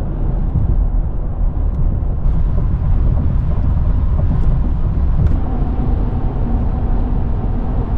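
Steady low rumble of tyre and engine noise inside a Ford pickup truck's cabin while driving on the road.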